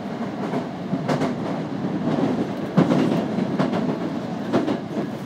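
Midosuji Line subway train running, heard from inside the car: a steady rumble of wheels on rail, with the wheels clacking over rail joints several times, mostly in quick pairs.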